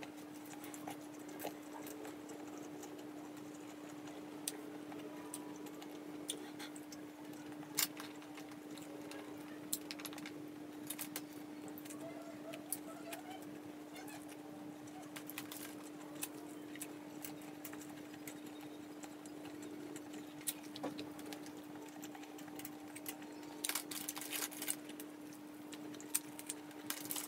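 Close-up eating sounds: wet chewing and lip-smacks as roast chicken is eaten by hand, scattered sharp clicks, with a cluster of them near the end. A steady low hum runs underneath.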